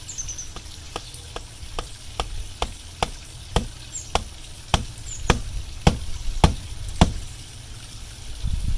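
Knocks from a cordless hammer drill being used as a hammer against a stone wall, about two a second and growing louder, stopping about seven seconds in.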